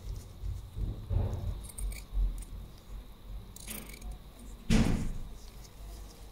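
A cloth rag rubbing along the polished steel blades of a pair of tailor's scissors, with handling rustles and small clicks. About three-quarters of the way through comes one louder wiping swish.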